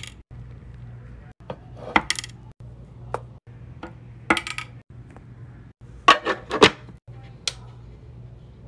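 Hard wax beads dropped one at a time from tweezers into an empty aluminium wax-warmer pot, each landing with a sharp metallic click; a quick run of several clicks comes about six seconds in.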